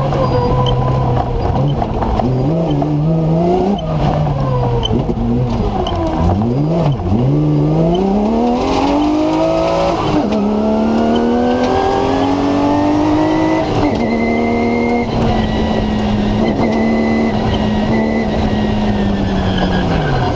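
BMW M3 engine in a TMC comp safari racing car, heard from inside the car under hard driving. It revs up and down several times in quick succession. Then it climbs in one long pull, rising in pitch for several seconds, and holds steady until the revs drop sharply at the very end.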